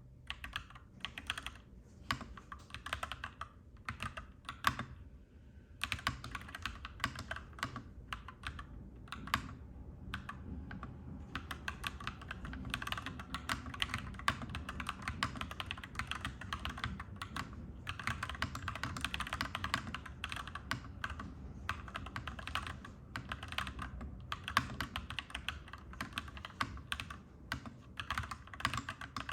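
Clacky mechanical keyboard being typed on in quick, continuous runs of keystrokes, with a brief pause about five seconds in. A steady low hum sits underneath.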